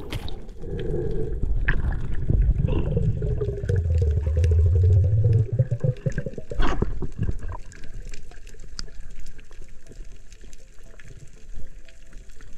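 Underwater water noise picked up by a camera in a housing as a diver swims down over a coral reef: a low rushing for the first six seconds, a sharp knock just after, then quieter water with faint scattered clicks.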